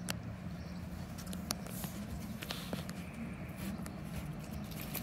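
Scattered light clicks and scratches from a golden retriever puppy moving on wooden deck boards, its claws tapping the wood as it gets up and sniffs about, over a steady low background hum.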